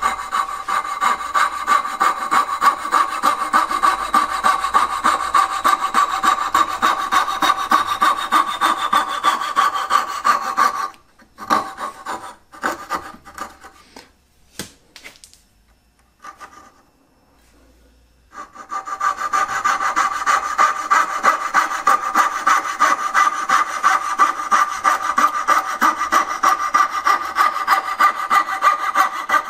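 Fine-bladed fret saw rasping back and forth through hardwood at about four strokes a second, cutting out the waste between dovetails. The sawing stops for several seconds in the middle, with a few light knocks, then starts again.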